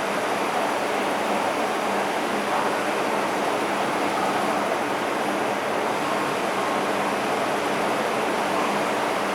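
MTR M-Train electric multiple unit running, a steady rushing noise with faint steady hums underneath.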